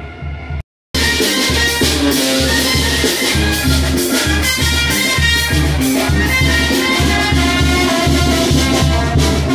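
Music breaks off for a moment under a second in. Loud Latin dance music with a steady bass beat, drums and brass then comes in.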